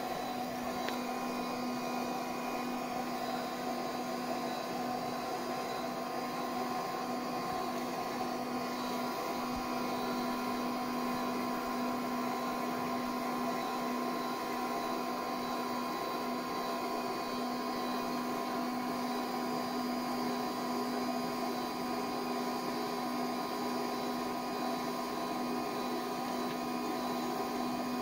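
Durst RCP20 print processor running on its new variable-speed DC motor, which drives the roller transport: a steady machine hum with a couple of constant tones.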